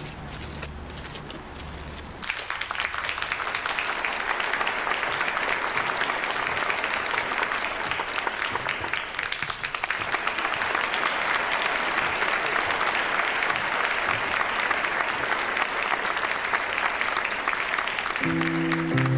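Low sustained background music for about two seconds, then an audience clapping steadily. Near the end a piano starts playing.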